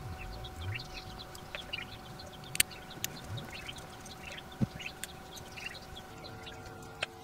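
Screws being handled and driven into a drill's gear-case cover with a hand screwdriver: scattered light clicks and a few sharp ticks, the sharpest about two and a half and four and a half seconds in. Under them run a steady hum and frequent short high chirps.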